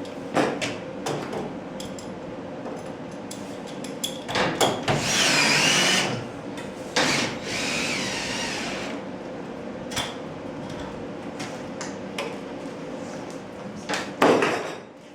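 A power drill runs in two bursts, starting about four and a half and seven seconds in, its whine wavering in pitch as it drives fasteners into garage door hardware. Scattered sharp knocks and clanks come around it, over a steady low hum.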